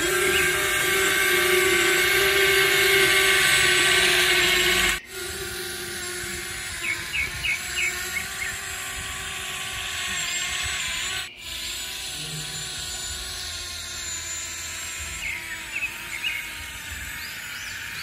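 Small electric motors and gearboxes of radio-controlled construction models running with a steady whine, loudest for the first five seconds. The sound breaks off abruptly about five and about eleven seconds in, with a few short high chirps in between.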